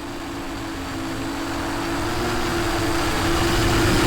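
A steady mechanical drone with a rushing noise, growing gradually louder.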